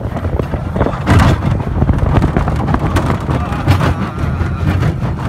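Small mine-train roller coaster running along its steel track, heard from on board: a steady low rumble with constant clattering and rattling of the wheels and car.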